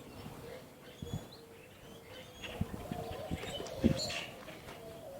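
Birds chirping and calling in a tree, with a few soft knocks and one sharper thump about four seconds in.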